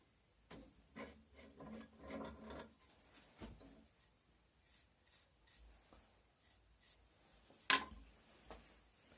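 Quiet handling sounds: rubbing and light knocks, a busier patch in the first few seconds, and one sharp click about three-quarters of the way through.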